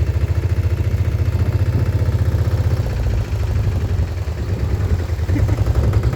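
Chhakda three-wheeler's single-cylinder diesel engine chugging steadily, heard from on board, with a rapid even thump of about ten beats a second.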